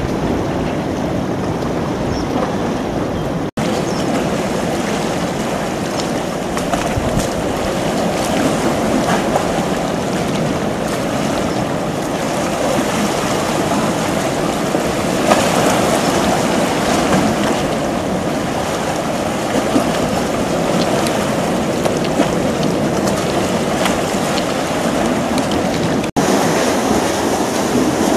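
Steady outdoor rush of sea surf against the concrete tetrapods of a harbour breakwater, mixed with wind on the microphone. There are two very short breaks, one early and one near the end.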